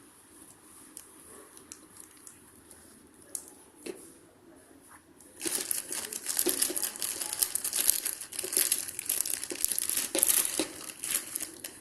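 Snack wrappers crinkling and rustling as a cat rummages in a snack box. There are a few faint ticks at first, then from about five seconds in a busy, continuous crinkling.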